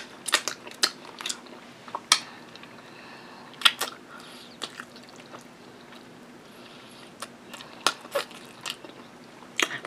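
Close-up chewing of smoked barbecue rib meat eaten by hand, with scattered sharp wet mouth clicks and smacks. The clicks come in irregular clusters, with a quieter stretch of soft chewing in the middle.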